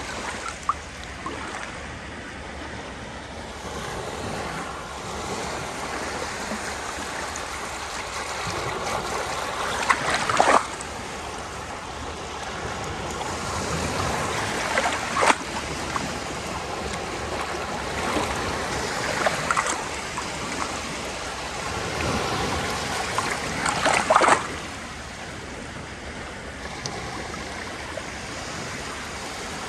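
Sea surf: a continuous wash of waves swelling and ebbing, with sharper splashes of breaking waves about ten, fifteen and twenty-four seconds in.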